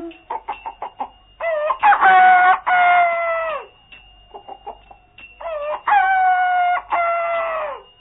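Rooster crowing twice, each crow a few short notes leading into a long held note that falls away at the end, with short clucks before and between the crows.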